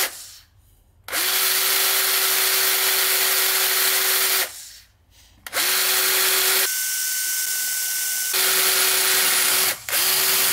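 Cordless battery drill with a small bit drilling a pilot hole into a cast-iron compressor cylinder wall. It runs in several bursts of a few seconds with short stops between: a steady motor whine over the noise of cutting. For a second or so in the middle it turns quieter and thinner, with a higher whine.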